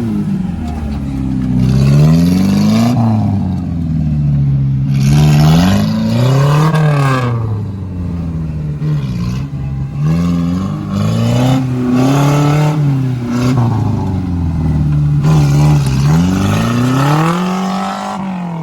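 Off-road 4x4's engine revving up and dropping back again and again, its pitch rising and falling every second or two.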